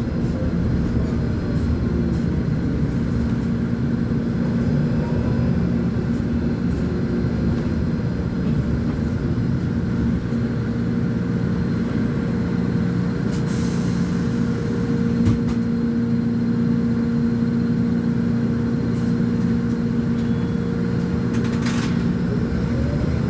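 Volvo B10M articulated bus's diesel engine running with a steady note, with two short hisses of air, about halfway through and near the end. The engine pitch starts to rise at the very end.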